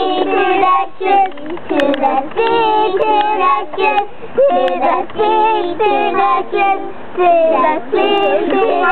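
Young children singing a song unaccompanied, in high voices with held, wavering notes.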